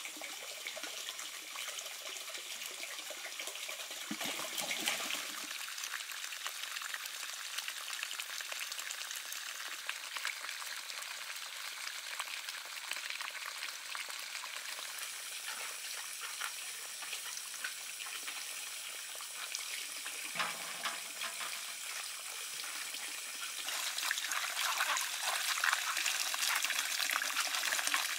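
Water from a garden hose pouring steadily into an enamel basin of quinces, splashing on the fruit. There is a low thump about four seconds in and another about twenty seconds in, and the splashing grows louder and more broken near the end as the quinces are rinsed by hand under the stream.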